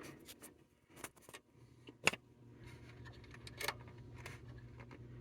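A few light clicks and taps of a screwdriver and wire ends at an alarm panel's terminal strip as a zone wire is undone, over a faint steady low hum that comes in about a second and a half in.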